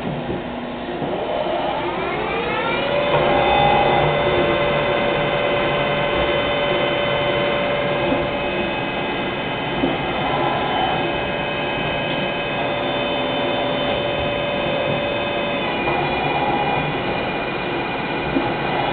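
Mori Seiki SL-3 CNC lathe spindle spinning up: a whine rises over about two seconds, then holds steady at speed, its tone shifting slightly late on.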